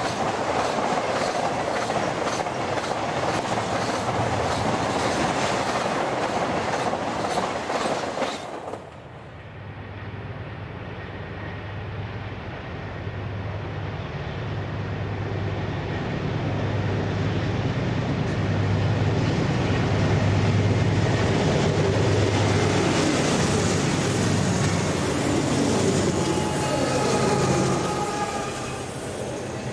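Freight cars rolling past at speed with a clickety-clack of wheels over the rails. After about nine seconds a cut to BNSF GE diesel locomotives approaching under power: a steady low engine drone that grows louder, drops in pitch as the units pass near the end, and gives way to the rumble of double-stack container cars.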